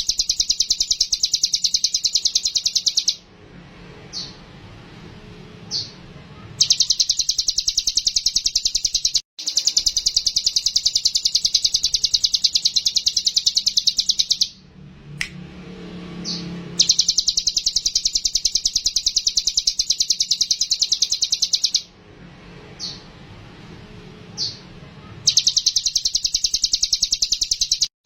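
A cigun songbird singing a fast, loud, high chattering trill in long stretches of several seconds, broken by short pauses with a few single notes, played as bait song to set other birds singing.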